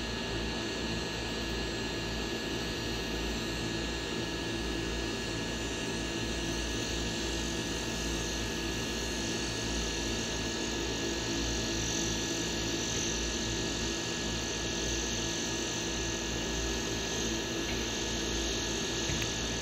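Multirotor drone's motors and propellers humming steadily, a constant whine of several tones over a low, fluttering rumble.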